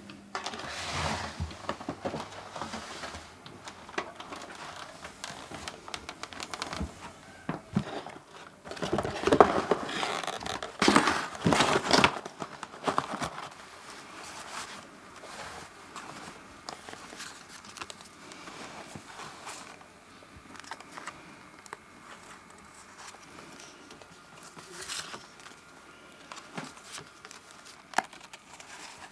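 Paper rustling and crinkling as a hand handles crumpled white paper and photographs, loudest for a few seconds in the middle, then softer, scattered handling sounds.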